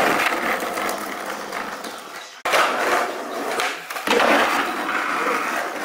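Skateboard wheels rolling over rough asphalt, a steady gritty rumble. It cuts off abruptly about two and a half seconds in, starts again straight away, and stops sharply at the end.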